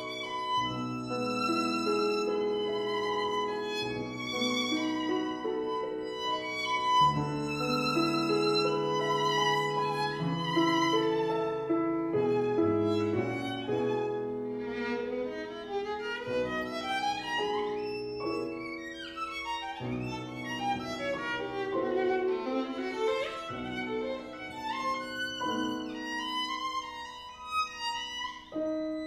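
Violin playing classical music: long notes with vibrato, then fast runs sweeping up and down through the middle of the passage.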